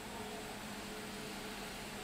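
Steady hiss with a faint low hum throughout and no distinct sounds.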